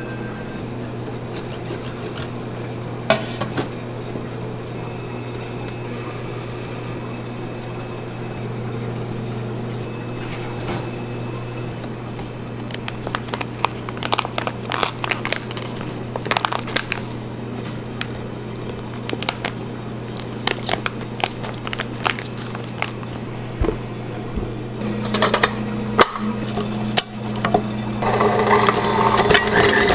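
Kitchen work noises over a steady low hum: light handling taps, then a run of crisp clicks and rustles as a large block of cream cheese is cut open in its wrapper. Near the end a stand mixer with a wire whisk starts beating the cream cheese, a denser, louder mechanical whirring.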